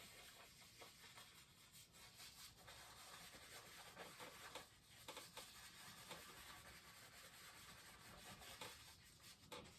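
Faint scrubbing of a paintbrush on canvas, worked in small circles to lay in mist.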